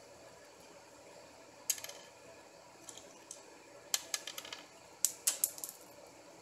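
Sharp plastic clicks and small snaps as support material is picked and broken off a freshly printed 3D part by hand. They come singly at first, then in two quick clusters about four and five seconds in, over a faint steady hiss.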